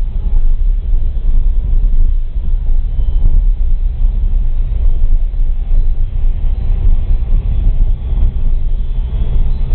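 Vehicle driving along an unpaved dirt track, heard from inside: a loud, steady low rumble of engine and tyres on the rough surface, with many small jolts.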